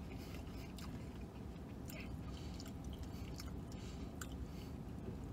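A man chewing a fried chicken finger with his mouth close to the microphone, with small, irregular wet mouth clicks. Under it is a steady low hum of the vehicle cabin.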